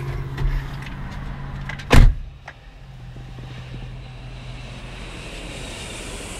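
A car door is shut with one loud thud about two seconds in, heard from inside the car. Under it runs a steady low hum from the idling car, quieter after the door closes.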